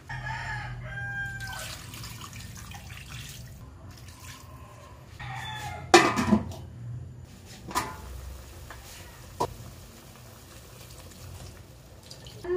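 An aluminium lid is set down on a wok about halfway through with a sharp metallic clank that rings briefly, followed by two lighter knocks. A steady low hum runs underneath.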